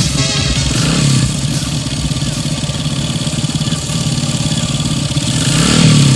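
A motor vehicle engine runs with a rapid low pulsing. Its pitch swells upward near the end, as in a brief rev.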